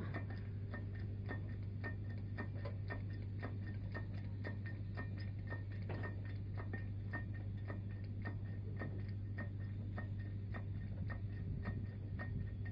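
Steady, even mechanical ticking, several ticks a second, over a constant low hum.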